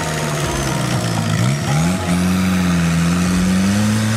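Homemade buggy's Volkswagen Golf 1.6 turbo-diesel engine revving as the buggy drives off. The revs fall and rise twice in the first two seconds, then hold steady and slowly climb.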